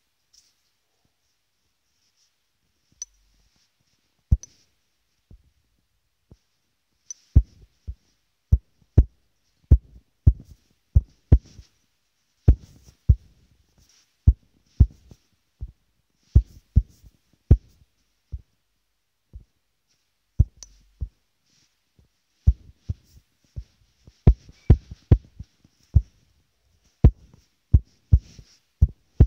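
Irregular fingertip taps on a phone's touchscreen, picked up by the phone's own microphone while colour is filled in on a drawing: short sharp knocks with silence between, a few at first, then one to three a second.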